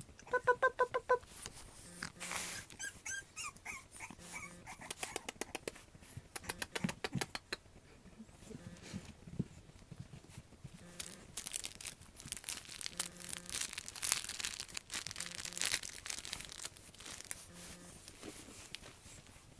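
French Bulldog puppies playing: a quick run of high squeaks about half a second in, then brief high whines, then a stretch of rapid light clicking and scuffling.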